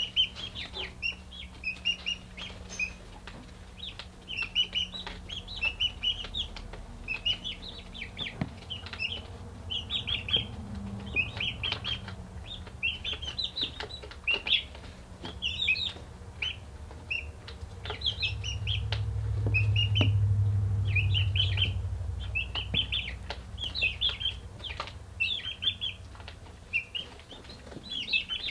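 Young chickens peeping, in repeated clusters of short high chirps all through, with occasional light clicks. A steady low hum lies underneath, and a low rumble swells and fades about two-thirds of the way through.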